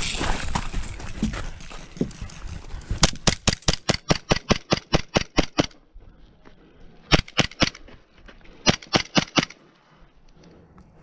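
Airsoft pistol firing sharp cracking shots: a rapid, evenly paced string of about eighteen shots beginning about three seconds in, then two shorter bursts of three to five shots. Some rustling of movement comes before the shooting.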